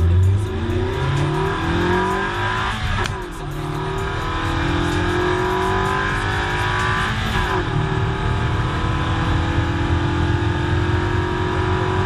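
Honda Civic EK hatchback's engine accelerating, its pitch rising through the gears with shifts about three seconds in and again about seven and a half seconds in, then running steadily at speed over tyre and road noise.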